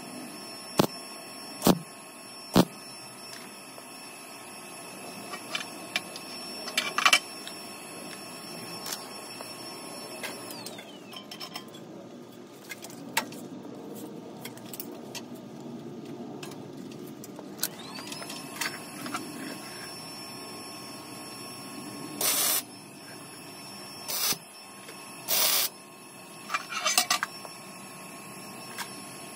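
Welding on a steel hot-rod frame: several short welding bursts under a second each, with sharp clicks between them. Under them runs a steady machine whine that dies away about ten seconds in and starts up again near twenty seconds.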